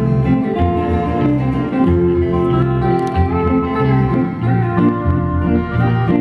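Instrumental break in a country song: guitar leading over a moving bass line, with no singing.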